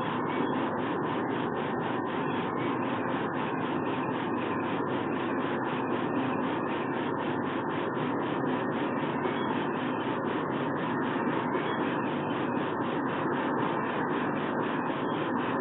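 Steady, even rushing noise picked up by an outdoor nest-box webcam's microphone, with no distinct calls or knocks.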